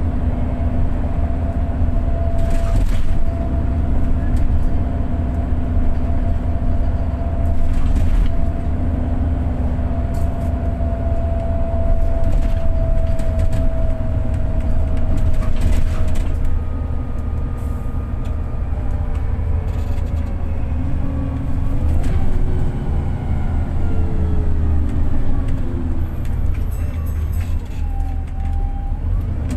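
Inside a VDL DB300 double-decker bus with a Voith four-speed automatic gearbox, running in limp mode: a loud low rumble from the driveline with a steady whine over it, and knocks and rattles from the body. In the last third the whine falls in pitch as the bus slows down.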